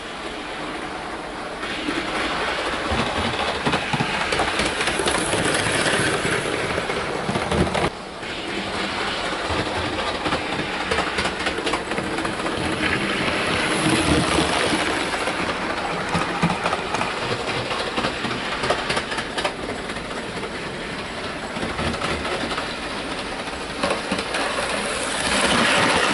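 Hornby OO gauge model HST power cars running on model railway track: a motor whirring under a dense clatter of small wheel clicks over the rail joints, getting louder and quieter as the train passes and turns away.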